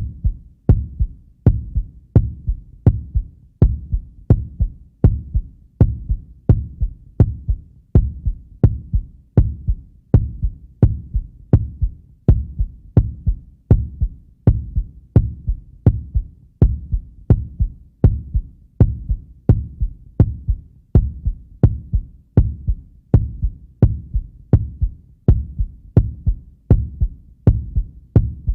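Heartbeat sound effect: a steady lub-dub, each beat a deep thump with a fainter second thump just after, at about 85 beats a minute.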